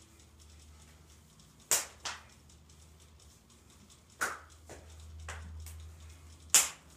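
Hands and forearms slapping against each other in Wing Chun chi sao (sticky hands) drills: about six sharp, irregularly spaced slaps, the loudest near the end.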